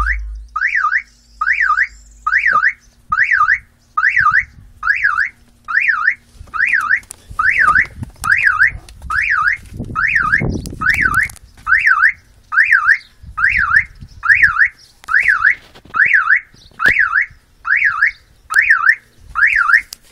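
Car alarm sounding a repeated warbling chirp that swings up and down in pitch, a little more than once a second, set off by the vibration of a 10-inch subwoofer's bass.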